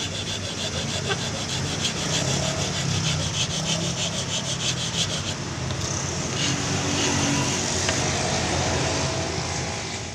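Flat steel hand file rasping back and forth on a knife sheath of sapodilla wood and buffalo horn, in quick, regular strokes that run together into a steadier rasp later on. The sound fades out at the very end.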